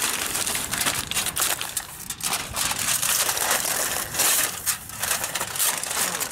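Aluminum foil crinkling and crackling as hands fold the sheets over into a large food packet. It is a loud, dense run of irregular crackles with a couple of brief lulls.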